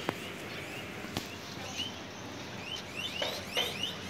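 High, short rising chirps from small animals, coming in quick clusters that grow denser in the second half, with two sharp knocks in the first second or so.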